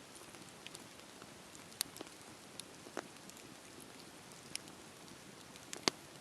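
Wood fire crackling, with a steady hiss and irregular sharp pops. The loudest pop comes near the end.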